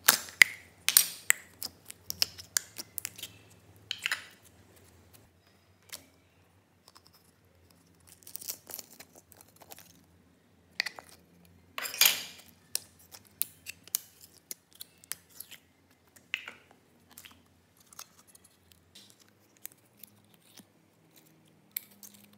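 Hands handling small plastic slime containers and the slime inside: scattered sharp plastic clicks and crackles as lids are worked and containers tipped, with sticky squishes and pops from the slime.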